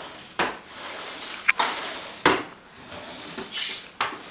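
Cat pawing at magnets on a refrigerator door: four sharp clacks at irregular intervals, with scraping between them.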